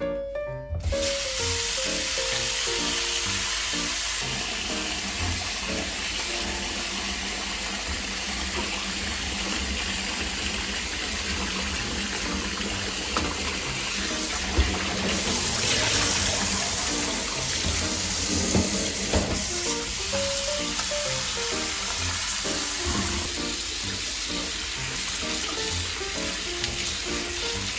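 Tap water running steadily over freshly boiled buckwheat soba noodles to cool them, with background music playing over it.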